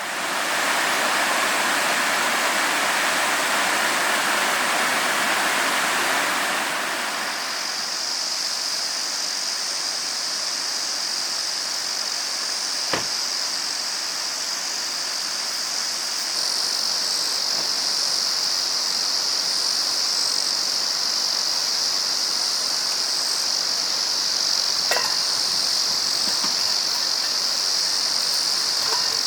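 A stream rushing for the first several seconds. Then a steady high drone of insects takes over, with the water fainter beneath it and a single sharp click twice.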